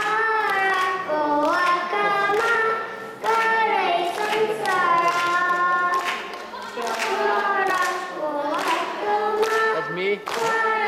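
A young girl singing into a microphone, holding long notes in phrases with short breaks between them.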